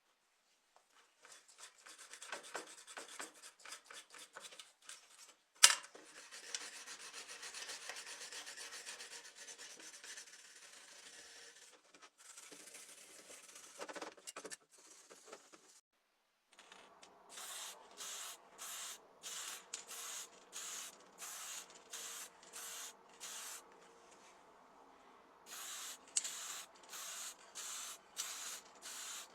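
Rust being scrubbed off metal by hand with an abrasive. It starts as irregular scraping strokes, with a sharp click about six seconds in. It then settles into even back-and-forth strokes, about three every two seconds, with a short pause a few seconds before the end.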